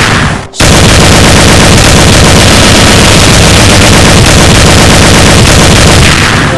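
Rapid, continuous gunfire sound effect, extremely loud and distorted. It breaks off briefly about half a second in, then runs on without pause for about six seconds.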